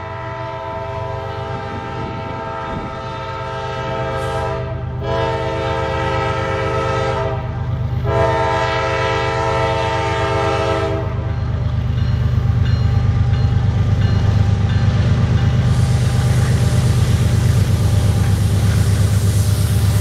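Nathan K5LA five-chime air horn on CSX ES44AC-H locomotive 988 blowing three long blasts as the freight approaches. After the horn stops, the low drone of the GE diesel locomotives grows louder as they draw near, with wheels clicking steadily over the rail joints near the end.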